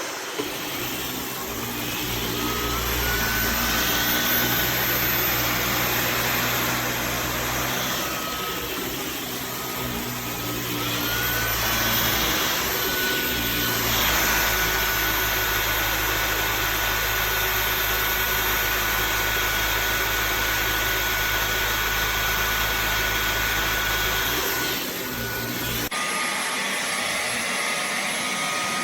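Dyson V15 Detect cordless stick vacuum running steadily with a high motor whine that steps up in pitch twice. Near the end the low rumble drops away and the whine settles lower.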